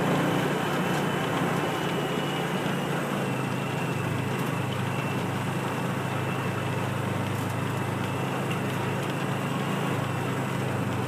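Small farm utility vehicle's engine running steadily as it is ridden along, with a low hum that drops slightly in pitch about three seconds in.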